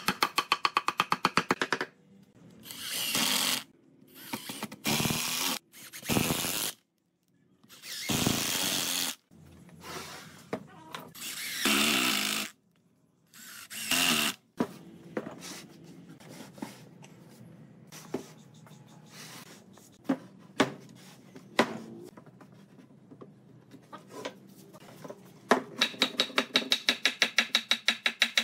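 A quick run of hammer blows on wood, then a series of short bursts from a Makita cordless impact driver driving screws into the wooden table-leg foot, each about a second long. Scattered light knocks follow, and another quick run of hammer blows comes near the end.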